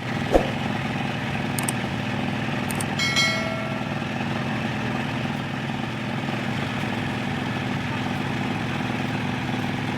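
Concrete mixer's engine running steadily, with a short ringing knock about three seconds in.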